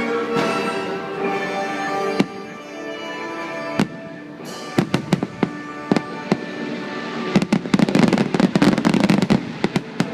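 Fireworks show: orchestral music plays from the show's speakers, then single firework shells go off with sharp bangs, followed by a run of cracks and a dense crackling volley near the end.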